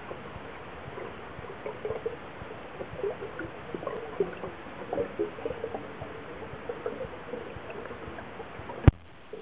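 Air bubbles from a diver's exhaled breath gurgling, heard underwater as a string of short bubbly bursts through a muffled hiss. One sharp knock near the end.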